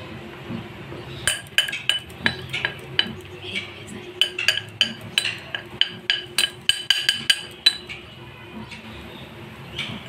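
Black metal measuring cup knocking and clinking against glass mixing bowls as flour is scooped into it and levelled off: a quick run of sharp, ringing clinks starting about a second in and lasting some six seconds, then a quieter stretch.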